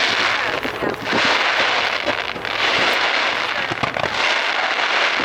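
Fireworks crackling in the air, in four waves of dense crackle about a second apart, with sharp pops scattered through them.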